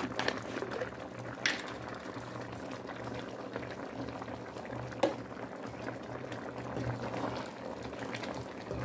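Pot of curry chicken feet bubbling at a simmer on the stove, with a few short, sharp knocks from about a second and a half and five seconds in.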